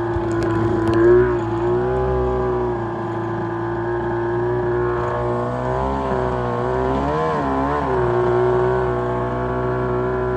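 The WaveRunner-based jet jon boat's engine running at a steady speed, its pitch wavering briefly up and down twice after about six seconds before settling again.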